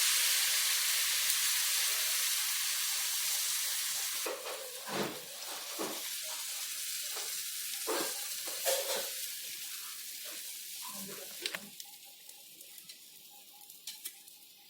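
Pooda batter of jaggery and flour sizzling in mustard oil on a hot tawa griddle. The sizzle is loudest at first and dies away over about twelve seconds, with a few light knocks and scrapes along the way.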